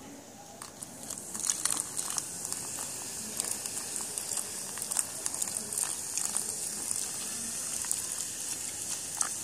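Coca-Cola poured from a plastic bottle into a plastic box, fizzing and crackling as the foam rises, starting about a second in.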